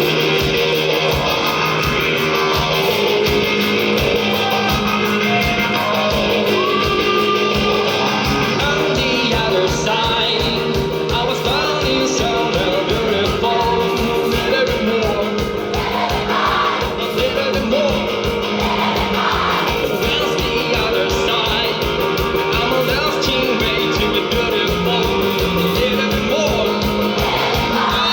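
Live rock band playing a song with a fast, steady drum beat, guitar and a singer's voice.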